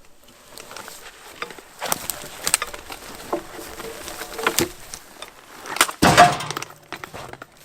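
Knocks and clunks of logs being handled, with a louder thud about six seconds in.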